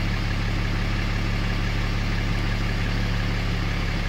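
Ram 5500's 6.7L Cummins inline-six turbodiesel idling steadily, heard from inside the cab, running without stumbling on its freshly replaced and primed fuel filters.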